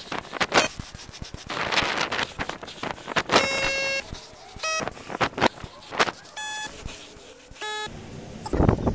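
Gravity-feed paint spray gun hissing in repeated bursts of compressed air as it sprays paint. Four short, steady beep-like tones at different pitches sound between about three and eight seconds in.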